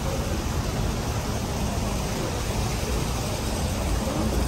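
Steady rushing noise of fountain jets splashing in a shallow pool, over outdoor background noise.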